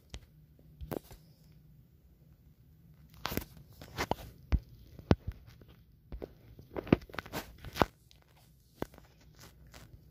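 Irregular taps, clicks and short scrapes of a fingertip on a phone's touchscreen and body, picked up close by the phone's own microphone, with a low steady hum underneath.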